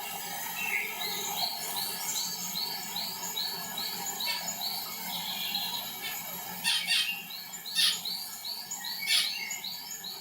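Birds calling: a run of short, evenly repeated high chirps at about three a second, then three loud, sharp calls that sweep down in pitch in the second half.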